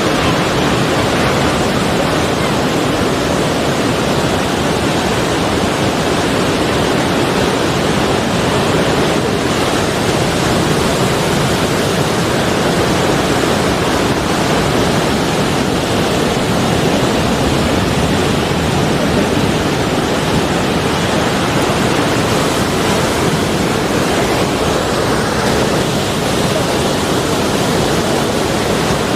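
Sea waves washing onto the shore, heard as a steady, even rush of surf with no separate swells rising and falling.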